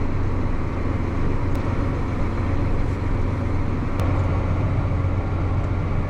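Farm tractor engine running steadily under way, a constant low hum with even mechanical noise.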